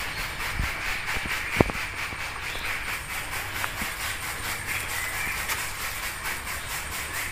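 A ceramic tile being handled and set against the tank's tile walls, with a sharp knock about one and a half seconds in and a few lighter taps, over a steady hiss with a fast, faint pulsing.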